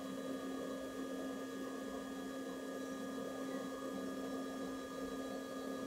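Steady hum and soft whir of an iMac G3 running, its hard drive busy as the disks are being formatted; the whir picks up slightly at the start.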